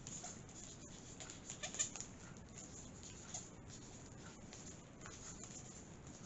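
Marker pen scratching as it writes on small plastic bags of diamond painting drills, with faint plastic rustling, a little louder near two seconds in.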